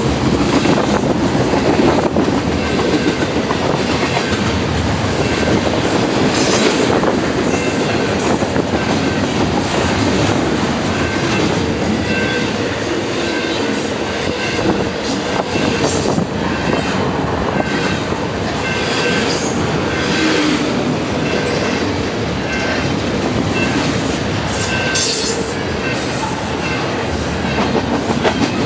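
Double-stack freight train cars rolling past: a steady rumble of steel wheels on rail, with brief, faint, high wheel squeals now and then.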